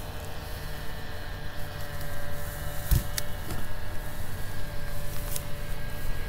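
Handling sounds of fishing gear on a kayak: two knocks about halfway through and a click near the end, over a steady low hum.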